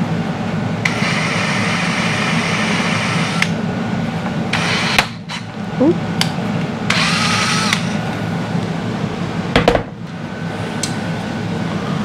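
Power drill running steadily into the plastic of a Ford Bronco grille, taken a little deeper at a time. Its whine rises and gets louder twice, about a second in and again around seven seconds, as the bit bites.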